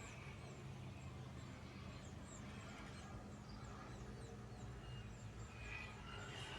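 Faint rice-field ambience: small birds giving repeated short, high chirps that fall in pitch, over a steady low hum.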